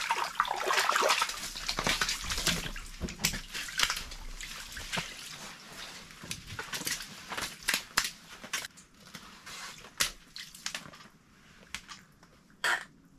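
Water splashing and sloshing in an ice-fishing hole as a trout is pulled up through it, loudest in the first second or two. Scattered sharp clicks and knocks follow.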